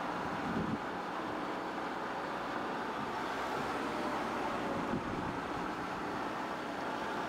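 A car driving at steady speed on a road: an even rush of engine and tyre noise with some wind, and two brief bumps, one under a second in and one about five seconds in.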